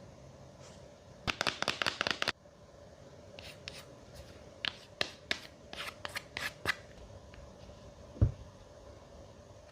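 Hands handling a phone box and its packaging: a second-long burst of crackling and rustling about a second in, then a string of separate clicks. Near the end comes one low thump, the loudest sound.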